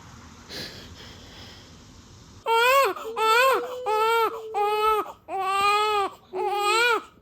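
Newborn baby crying: after a quiet start, six loud wailing cries in a row beginning about two and a half seconds in.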